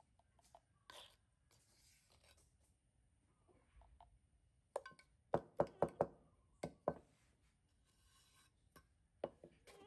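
A plastic formula scoop knocking against a plastic baby bottle as milk powder is spooned in: a quick run of about six sharp knocks in the middle, one more near the end, and faint rustling before them.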